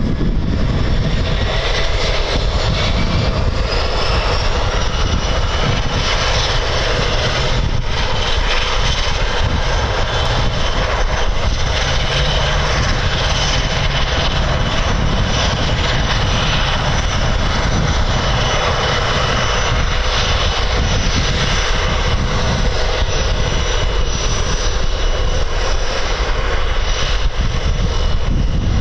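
Aircraft turbine engines running on the apron: a steady high whine over a low rumble, with one whine rising in pitch during the first few seconds.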